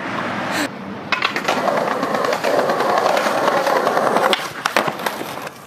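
Skateboard wheels rolling over a paved sidewalk with a rough rumble and many quick clicks from the paving joints. There is a sharp knock about half a second in, and the rolling stops after about four seconds, followed by a few separate clacks.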